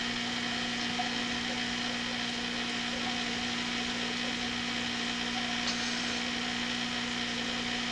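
A steady mechanical hum with a constant low tone over an even hiss, unchanging throughout.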